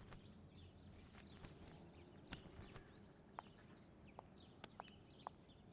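Near silence: faint room tone with a few small clicks and faint, scattered bird chirps.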